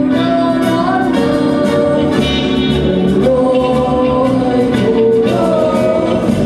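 A mixed group of women and men singing a Vietnamese song together into microphones, in long held notes that glide from one pitch to the next.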